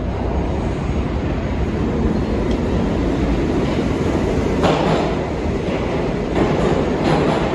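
New York City subway train running along the track through the station, a steady rumble with its wheels clacking over rail joints several times in the second half.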